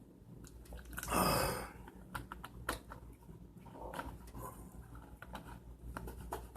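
Close-up eating sounds: irregular small wet clicks of chewing, with a louder noisy burst about a second in.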